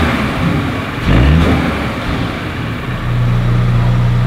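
Mercedes C300's 2.0-litre turbocharged four-cylinder engine being revved while stationary: a short rev about a second in, its pitch rising and falling, then held at a steady speed from about three seconds in.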